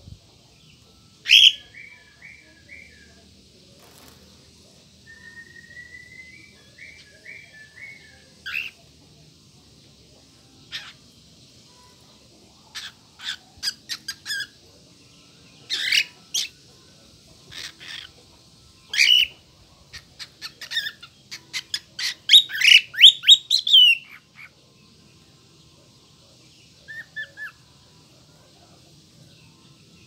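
Lutino cockatiel calling and whistling. A sharp call comes about a second in, followed by short warbled whistle phrases. Then comes a run of brief sharp chirps that builds to a loud, rapid burst in the last third, with a few faint notes near the end.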